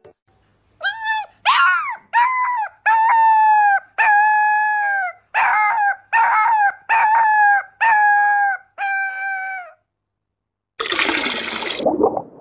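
A puppy howling: about ten short, high, held howls in a row, some sliding up or down in pitch. Near the end, after a second's silence, a loud whooshing burst of noise.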